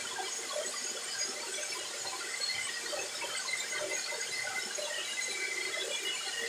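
Soap extruder machine running, its electric motor driving the extrusion screw: a steady hissing noise with many short, scattered high-pitched squeaks.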